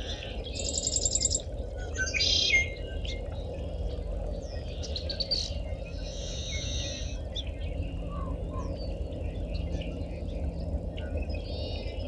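Dawn chorus of several marsh birds calling and singing over one another, picked up through a parabolic dish microphone. The loudest are a rapid buzzy trill about a second in and a loud call a second or so later, over a steady low rumble.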